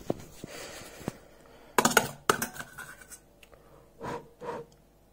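Scraping and clicking of a utensil in a metal pot, mixed with fingers rubbing against the phone, with a sharper clatter about two seconds in.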